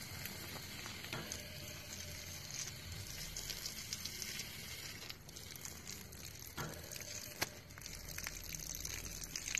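A thin stream of water hissing and spattering on wet grass and a serval's fur, with a few short knocks, the sharpest about seven seconds in.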